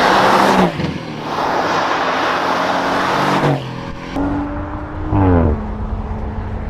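Twin-turbocharged sports coupe engine under hard acceleration and revving, cut together from separate recordings so the sound changes abruptly a few times; about five seconds in the revs drop and the engine note falls.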